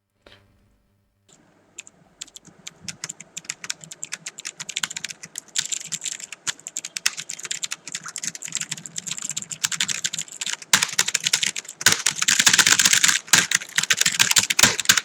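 Fast typing on a mechanical keyboard with clicky Outemu blue switches, a rapid run of sharp key clicks that grows into a dense, louder flurry of keystrokes in the last few seconds.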